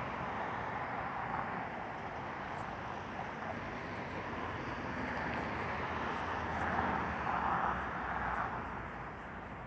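Road traffic going past, a steady rush of tyres and engines, with one vehicle growing louder about seven seconds in before the noise eases off near the end.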